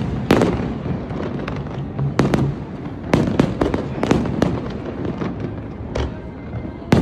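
Aerial fireworks display: a rapid, irregular run of sharp bangs and cracks from shells bursting overhead, over a continuous low rumble.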